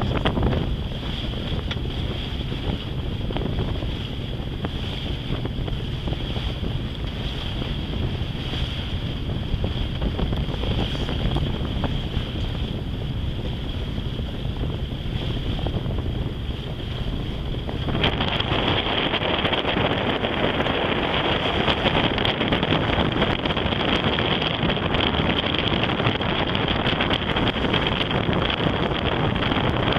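Wind buffeting the microphone aboard a sailing yacht under way, with the wash of water. About eighteen seconds in the sound changes suddenly to a brighter, steadier hiss.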